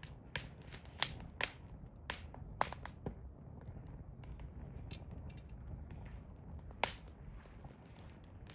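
Hardwood campfire crackling: irregular sharp pops and snaps, the loudest about a second in and another near seven seconds, over a low steady rumble.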